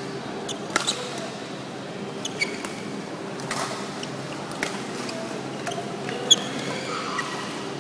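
Badminton rally in a large hall: a series of sharp pocks as rackets strike the shuttlecock, about five over several seconds, with short high squeaks of sports shoes on the court floor.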